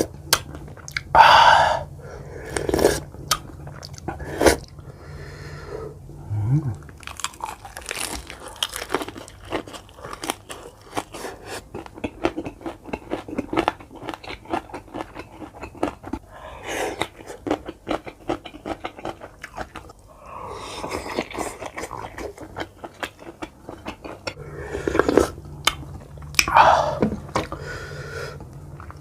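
Close-miked chewing and biting of grilled pork: a dense run of wet mouth clicks and light crunches, with louder bites now and then.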